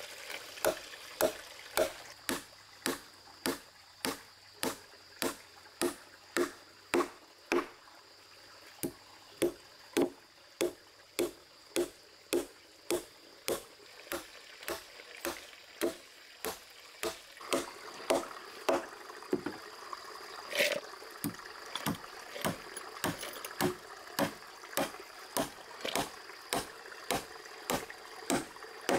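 Hammer driving nails into a wooden plank, with steady strokes about twice a second.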